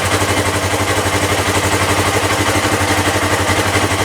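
Polaris RZR side-by-side engine idling steadily with an even, fast pulse.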